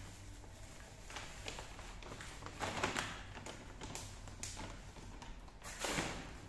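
Kitten eating wet pâté from a bowl: irregular wet smacking and chewing clicks, with two louder bursts about three seconds in and near the end.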